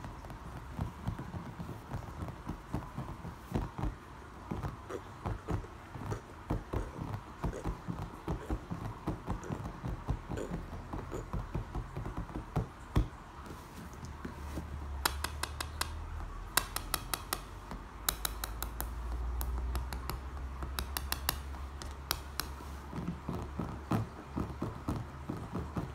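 Fingertips and fingernails tapping fast on a pool brick and the hard surface beside it, in quick irregular patterns. From about halfway, tight runs of sharp nail clicks, over a low rumble for several seconds.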